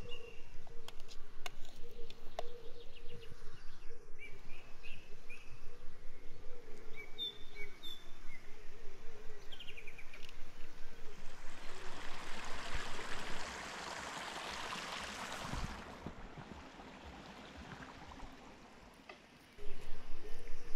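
Hands kneading minced chicken kofta mixture in a glass bowl, in a regular rhythm of about three strokes a second, with small birds chirping. The kneading stops about two-thirds of the way through, leaving a few seconds of rushing noise and a quieter stretch, then a similar rhythm returns near the end.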